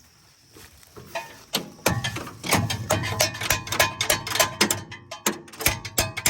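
Background music with drums and percussion coming in about a second in and settling into a steady beat.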